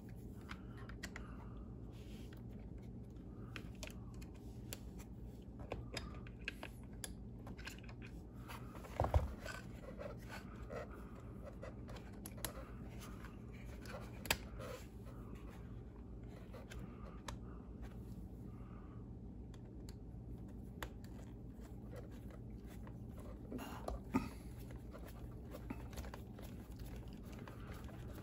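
Faint scattered clicks and small knocks of hands handling a plastic RC car chassis and a hex driver while fitting sway bar parts, with a few louder taps spread through, over a steady low hum.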